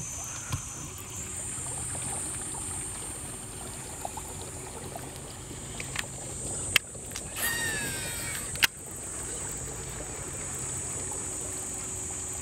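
Outdoor ambience on a fishing boat on a river: a steady low hum with water trickling, and a steady high buzz throughout. Near the middle come two sharp clicks about two seconds apart, with a falling whistle between them.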